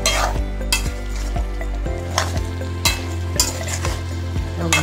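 Wooden spatula stirring and scraping fish head, fermented bamboo shoot and potato frying in an aluminium kadai: several scraping strokes at irregular intervals over a steady sizzle.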